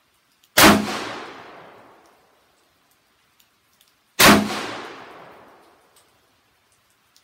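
Two handgun shots about three and a half seconds apart, each followed by a trailing echo that dies away over a second or so.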